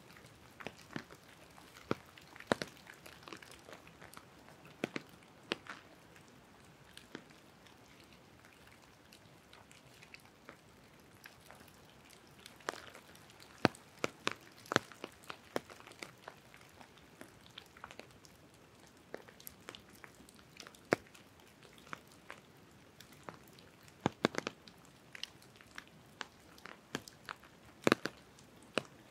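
Raindrops dripping from the trees, landing as sharp taps at irregular intervals, some close and loud, over a faint, quiet background.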